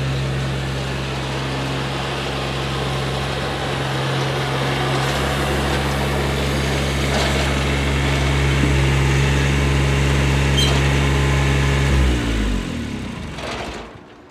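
Kubota lawn tractor's engine running steadily, then shut off about twelve seconds in, its pitch falling as it spins down to a stop.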